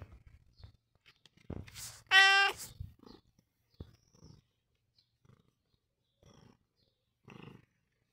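Domestic cat purring with a low rumble while being stroked, broken by one short, loud meow about two seconds in, then a few fainter short sounds from the cat.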